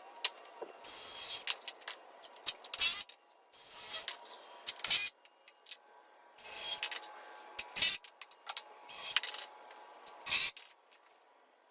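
Power tool fastening the back-rest pieces of a wooden bench: four rounds of short hissing bursts, each followed by a sharp, loud crack.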